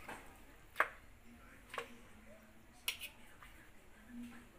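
Metal fork clicking and scraping against a plate while pork chops are turned and pressed in soy sauce marinade: three sharp clicks about a second apart, the first the loudest.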